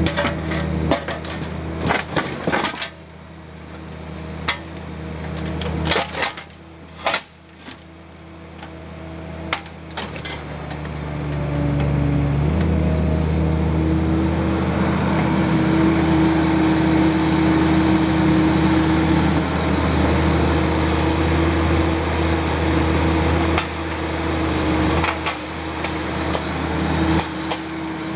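Bobcat mini excavator's diesel engine running, its note stepping up and working harder about halfway through as the hydraulics take load. The steel bucket knocks and scrapes against blast rock in a pickup bed, in bunches of clanks during the first ten seconds and again near the end.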